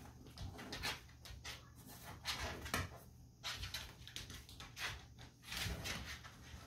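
A pot-bellied pig and a dog nosing and rooting about on a tile floor and in a pile of blankets. The sound is a run of short, irregular snuffling, rustling and scuffling noises.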